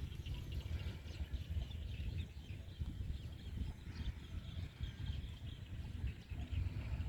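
Night-time field ambience: many small, quick animal chirps and ticks, high in pitch, over a steady low rumble.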